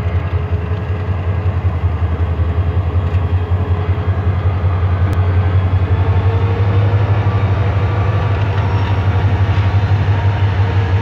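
Diesel locomotive engine running with a loud, deep, fast-pulsing drone as it hauls a passenger train slowly past.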